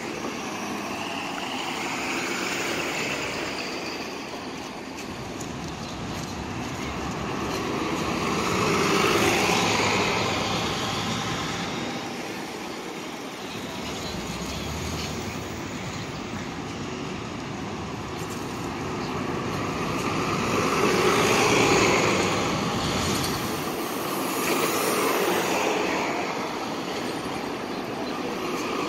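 MTA New York City buses running and driving past close by, a steady mix of engine and tyre noise that swells as each bus goes by, loudest about nine seconds in and again a little past twenty seconds.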